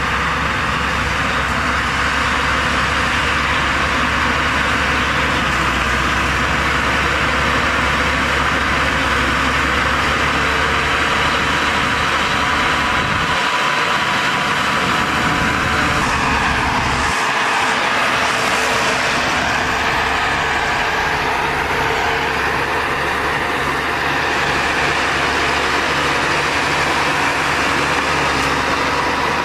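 Heavy diesel earthmoving machinery running steadily, a loud continuous engine rumble. The sound changes abruptly once or twice partway through.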